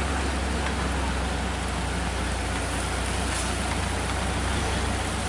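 Steady rain falling on a wet road, with a low, steady engine rumble from slow traffic climbing the bend.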